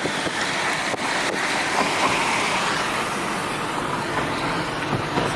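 Steady road and wind noise of a car driving along.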